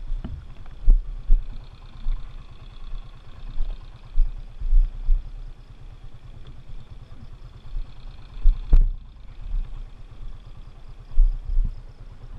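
Motorcycle engine idling with a low rumble, overlaid by irregular heavy thumps and one sharp knock about eight and a half seconds in.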